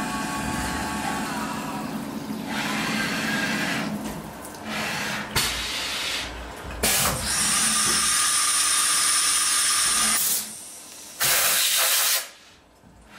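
CNC milling machine peck-drilling a 5 mm hole in cast iron under flood coolant: spindle whine and spraying coolant, then several loud hissing blasts with short gaps between them as the drill retracts.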